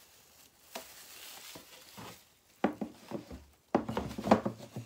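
Plastic lid of a Worm Factory worm composting bin being set on and fitted into place: a faint rustle, then a run of clattering knocks in the second half, thickest near the end.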